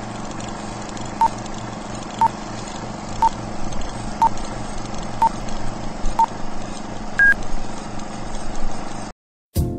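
A series of short electronic beeps about once a second, six at one pitch, then a higher, longer final beep, over a steady hiss and low hum. About 9 s in the sound cuts off abruptly, and music begins just before the end.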